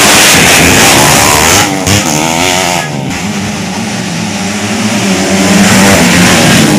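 Motocross bikes racing on a dirt track, engines revving hard, rising and falling in pitch, with brief throttle cuts about two and three seconds in.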